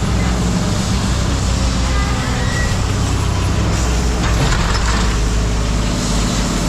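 Heavy diesel machinery engine running steadily at a scrap yard, with a brief hissing noise about four seconds in.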